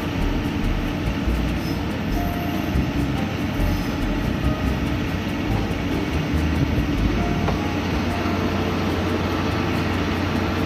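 Single-car diesel railcar pulling into a station, its engine running with a steady low hum over the rumble of its wheels on the rails.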